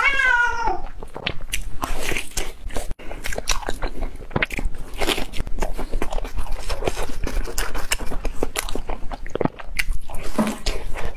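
Close-miked eating sounds: biting into and chewing a fried red bean paste puff, with many irregular small crunches and clicks from the fried, sugar-dusted crust.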